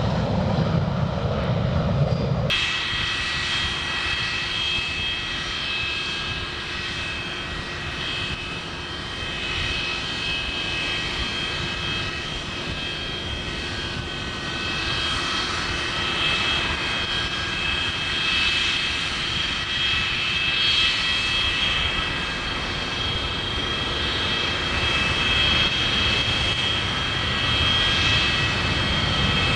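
Jet noise from a Boeing 727's three low-bypass engines climbing out: a deep, heavy rumble. It cuts off abruptly about two seconds in. In its place comes a Boeing 747 landing and rolling out on the runway: a steady rush of four turbofans with several high whine tones, growing somewhat louder in the second half.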